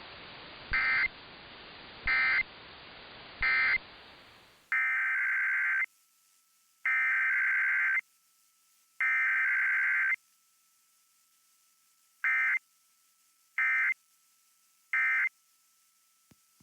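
Emergency Alert System digital data bursts, the buzzy two-tone SAME signal. It starts with three short end-of-message bursts over a hissy background. Then, on a cleaner recording, come three longer header bursts and three more short end-of-message bursts, the pattern of a test sent without a voice message.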